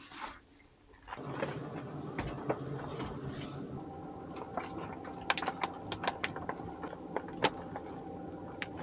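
Heavy plastic MRE meal bag being handled and opened, crinkling with many sharp crackles that come thickest from about four seconds in, over a faint steady hum.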